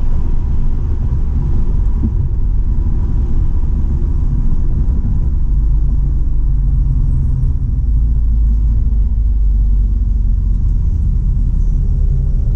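Steady low rumble of a 2017 Volkswagen GTI heard from inside the cabin: engine and road noise with no revving up or down.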